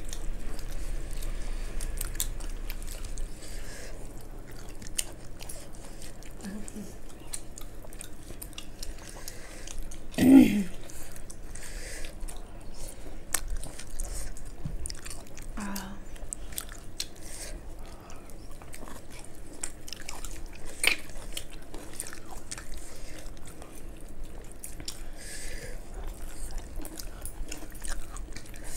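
Close-up eating sounds of people eating with their hands: chewing and wet mouth clicks, with many small clicks throughout. A short hum-like vocal sound about ten seconds in is the loudest moment.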